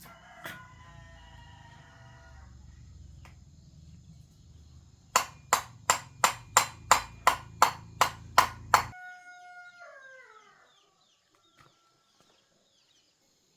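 A rooster crows. Later a run of about a dozen sharp knocks at roughly three a second is the loudest sound, over a low hum that cuts off suddenly. A falling call follows, then it goes quiet.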